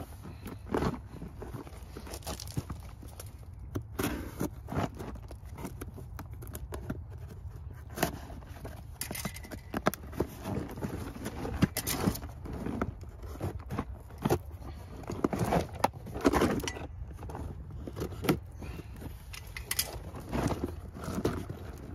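Small knife cutting along the taped seam of a cardboard box, with irregular scrapes, taps and rustles as the box is handled and pulled open. A steady low rumble runs underneath.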